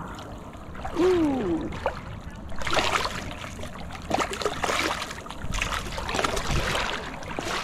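Shallow water splashing and sloshing in a few irregular bursts, with a man's short 'ooh' about a second in.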